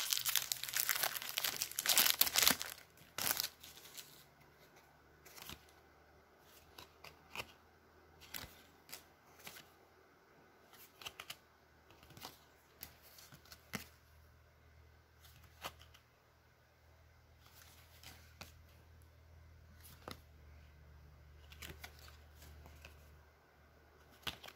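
Foil wrapper of a trading card pack crinkling and tearing as it is ripped open, loudest over the first two or three seconds. After that come scattered soft clicks and rustles of the cards being handled and flipped.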